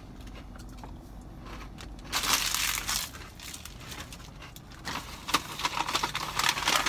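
Snack packaging being handled, crinkling and rustling in two bouts. A Cheetos bag crinkles briefly about two seconds in, and a paper bag rustles with crackles from about five seconds in.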